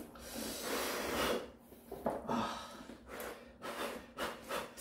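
Two people slurping ramyeon noodles: one long slurp, then a run of shorter ones.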